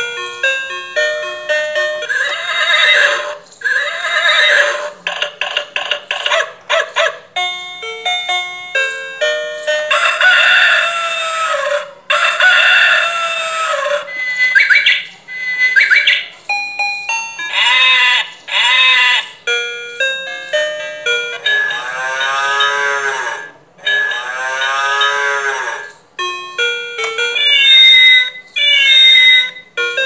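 Electronic animal-sounds toy for toddlers playing a beeping tune of short notes, broken up by recorded animal calls, including two long calls past the middle and higher chirping calls near the end.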